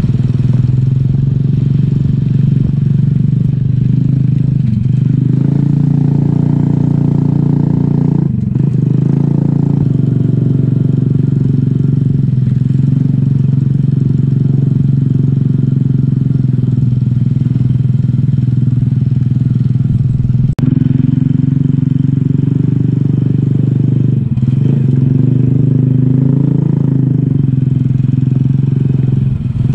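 Small motorcycle's engine running under way, heard from the rider's seat, its note rising and falling with the throttle. The engine note drops out briefly about 8 and 20 seconds in.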